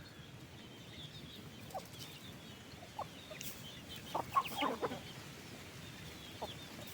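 Chickens clucking: short single clucks now and then, with a quick run of several clucks about four seconds in, over faint high chirping.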